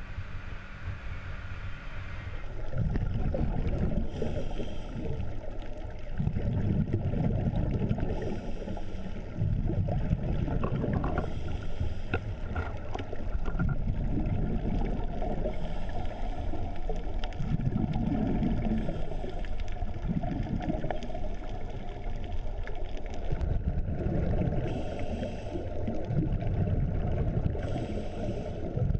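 Muffled underwater sound from a camera housing: a low rumbling haze with gurgling swells every two to three seconds, the exhaled bubbles of scuba diver regulators. The first couple of seconds, before the cut underwater, are a steady hum on the dive boat's deck.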